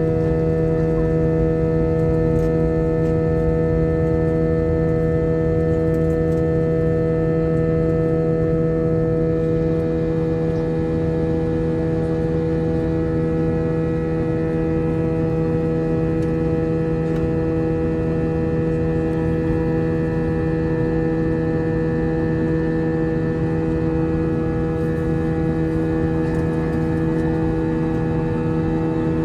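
Steady drone of an airliner's turbofan engines heard inside the passenger cabin: a hum of several fixed tones over an even rushing noise.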